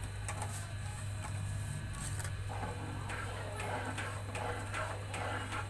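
A spoon stirring pakoras into thick kadhi in a metal pot, with faint scraping and light taps that grow busier about halfway through, over a steady low hum.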